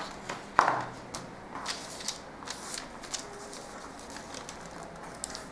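Brown pattern paper being handled and shifted on a table: short rustles and light taps, with a sharper click about half a second in.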